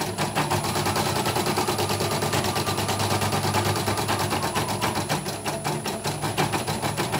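CNY M15 portable embroidery machine stitching a design: a rapid, even clatter of needle strokes, about eight a second, steady throughout.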